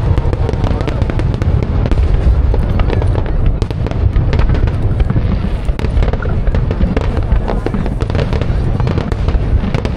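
Fireworks display: many shells bursting and crackling in quick succession, the booms running together into a continuous low rumble.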